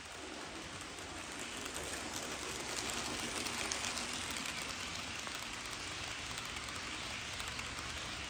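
HO scale model freight train, a pair of SD60F locomotives hauling freight cars, rolling past close by: a steady rushing clatter of small wheels on the rails, full of fine clicks, loudest about three to four seconds in as the cars pass nearest.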